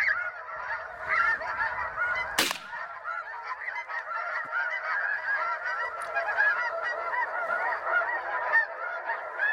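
Snow geese calling: a dense, unbroken chorus of many overlapping high honks. A single sharp crack cuts through about two and a half seconds in.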